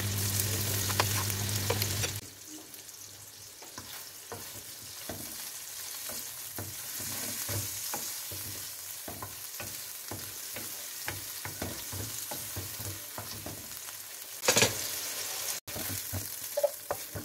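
Small meatballs sizzling as they brown in a little oil in a nonstick frying pan, with the light scrape and tap of a wooden spatula turning them. Louder for the first two seconds and again briefly near the end.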